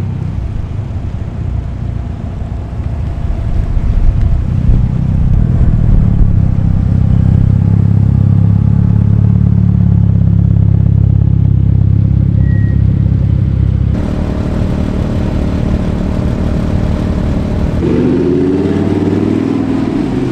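Performance car engines and exhausts as cars drive past one after another, with a loud, steady low exhaust note through the middle. After an abrupt change, an engine rises in pitch as a car accelerates near the end.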